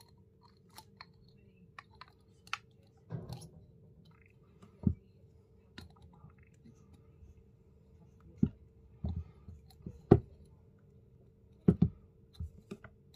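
Irregular small clicks and taps of pliers and wire against a glass jar as the wire is bent into a loop around it, with a few louder dull knocks, the loudest about ten seconds in and a close pair near the end.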